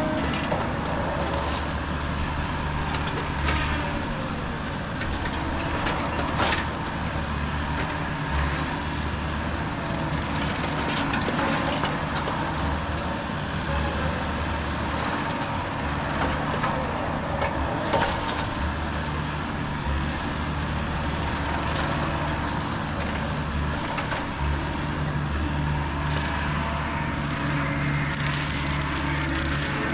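Mini excavator running a Rut brush cutter head, the engine and cutter working steadily as they chew through brush, the low engine note rising and falling under changing load. A few sharp cracks of breaking wood stand out.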